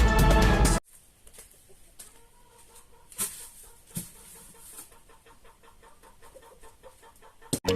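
Background music that stops about a second in, then chickens clucking faintly, with a run of quick clucks in the middle; the music comes back near the end.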